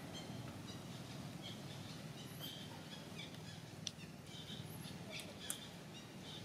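Faint outdoor ambience: small birds chirping in short, high, scattered notes over a low steady hum, with two sharp clicks about a second and a half apart near the middle.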